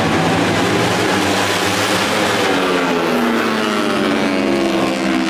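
Engine of a vỏ lãi racing speedboat running hard, its note dropping slightly in the second half.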